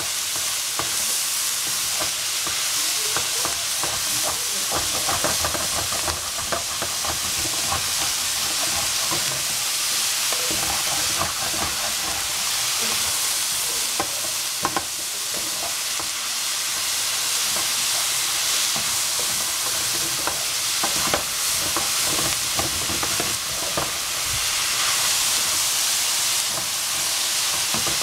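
Shredded cabbage, pork and vegetables sizzling in a frying pan while a spatula stirs and tosses them, with a steady hiss and frequent short scrapes and knocks of the spatula against the pan.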